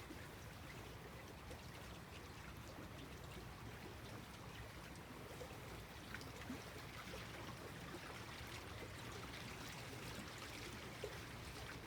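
Small waves lapping gently at the water's edge: a soft, steady wash with a few faint little splashes.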